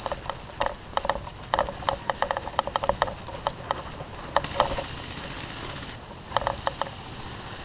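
Airsoft guns firing: sharp clicks and snaps, some single and some in quick strings, thickest in the first half, with a few more near the end.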